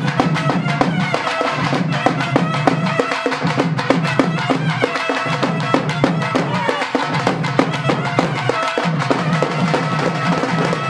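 Tamil folk temple music: a double-reed pipe plays a loud, sustained melody over a steady, rapid beat on the magudam frame drum.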